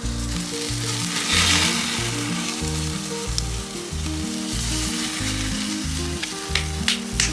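Bone-in prime rib roast sizzling as it sears over open flame on a smoker's firebox grate. The sizzle swells loudest about a second in as the roast is turned onto a fresh side. A few sharp clicks come near the end, over background music with a steady bass beat.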